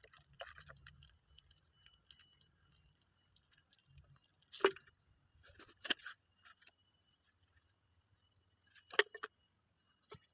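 A few short, sharp knocks or snaps, the loudest about halfway through and another near the end, over a faint steady high hiss.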